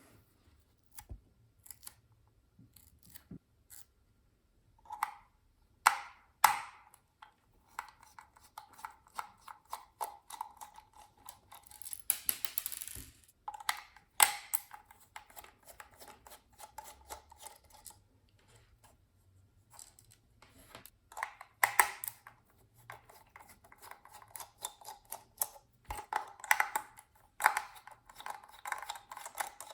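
Handling and working on a small plastic security camera's housing: scattered sharp clicks, taps and scraping, on and off in short spells.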